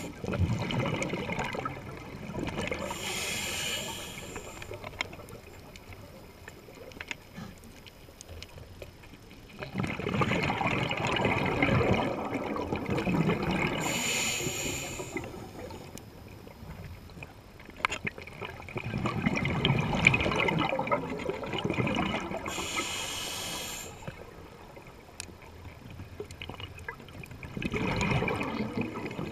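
Scuba diver breathing through a regulator underwater: a short hissing inhale, then a longer burst of exhaled bubbles gurgling, repeated in about three slow breath cycles roughly ten seconds apart.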